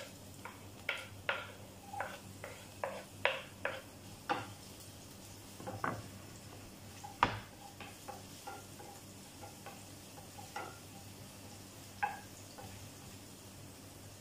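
Chopped onion going into hot olive oil in a nonstick frying pan and being stirred with a wooden spoon: a quick run of spoon knocks and scrapes against the pan for the first few seconds, then sparser taps with one louder knock about seven seconds in, over a faint sizzle.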